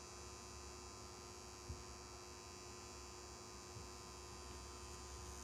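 Pen-style rotary tattoo machine with a cartridge needle running with a faint, steady hum as it draws a line into skin.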